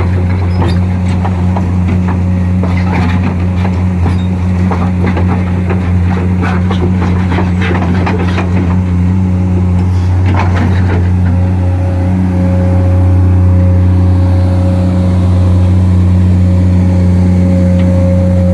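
Komatsu PC200 excavator's diesel engine running steadily, with scattered clicks and knocks through the first half. About eleven seconds in, a thin steady whine joins and the engine note gets slightly louder.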